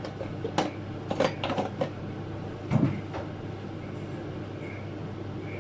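Kitchen containers and utensils being handled: a cluster of light knocks and clatters in the first two seconds, then a dull thump about three seconds in, over a steady low hum.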